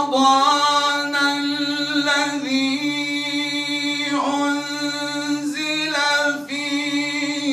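A man chanting Quran recitation solo into a microphone, drawing out one long melodic phrase on held notes with small ornamental pitch turns, with a brief break about four seconds in.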